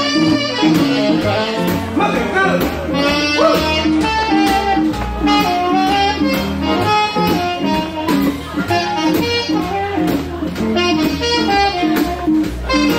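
Swing jazz band playing, saxophone lines over a bass line and a steady beat.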